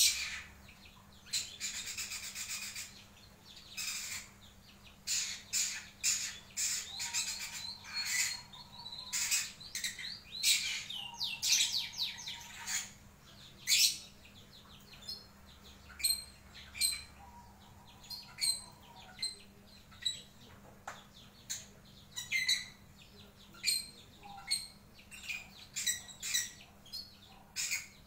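Caged lovebird singing a varied chattering song of short, high chirps and squawks, with denser runs of rapid twittering now and then, and without the long rattling ngekek trill or the ticking ngetik call.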